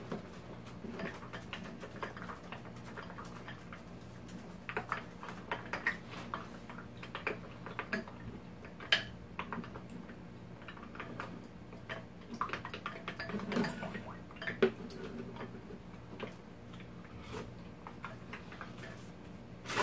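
Close-up eating sounds: irregular small clicks and smacks of chewing and of utensils against a bowl, a few sharper knocks among them, over a low steady hum.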